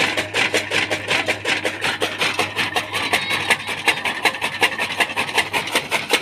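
Electric chaff cutter chopping green fodder as it is fed in by hand. The blades make rapid, even chopping strikes over the motor's low hum.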